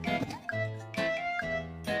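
Background music: a simple tune of held notes that change about every half second.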